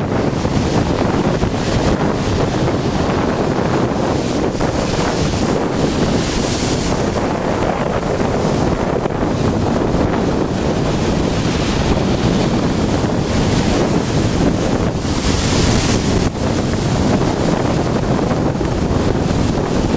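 Storm waves breaking and crashing against a sea groyne, with strong wind buffeting the microphone. Two louder surges of breaking water come about 6 and 15 seconds in.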